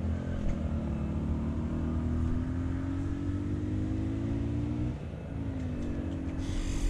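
A motor engine running, its note climbing slowly for about five seconds, dropping briefly, then climbing again over a low rumble. A short hiss near the end.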